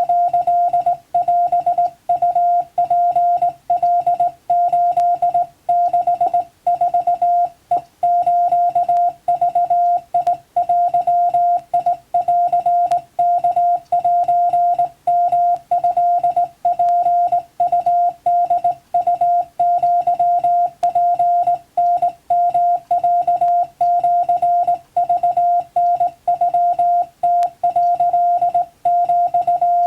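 Morse code sent as a single-pitch CW tone, keyed on and off in a fast, continuous stream of dots and dashes with brief pauses between characters and groups.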